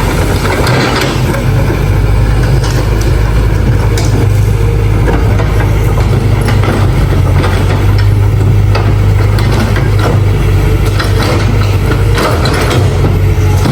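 Excavator's engine running steadily with a loud, low drone, with scattered short clanks and knocks over it.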